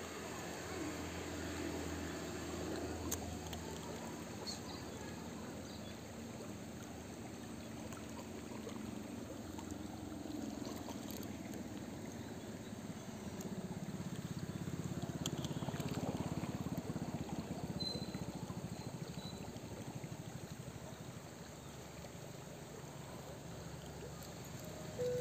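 Steady rush of a fairly fast river current, swelling a little about halfway through.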